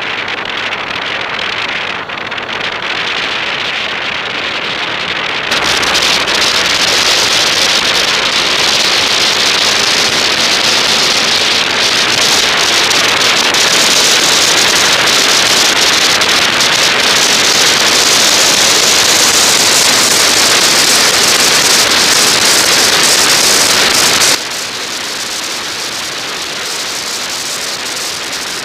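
Wind rushing over the microphone of a camera mounted on a moving bike, a steady loud noise with no engine note. It jumps to a louder rush about five seconds in and falls back abruptly near the end.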